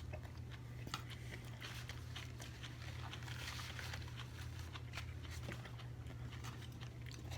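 A person chewing and biting food close to the microphone, with small scattered mouth clicks, over a steady low hum.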